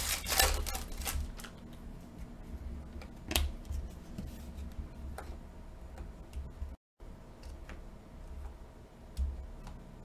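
Mosaic soccer trading cards being handled and flipped through one by one: light clicks and slides of the glossy card stock, with a crinkly rustle of the opened pack wrapper in the first second. The sound cuts out for an instant about two-thirds of the way through.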